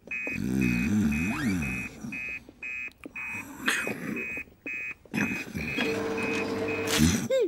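Fire station call alarm in a children's cartoon, sounding a fast series of short, high electronic beeps, about two and a half a second: the signal of an incoming emergency call.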